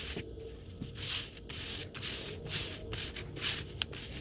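Hands rubbing and smoothing a sheet of fabric flat against a tabletop, in repeated swishing strokes about twice a second.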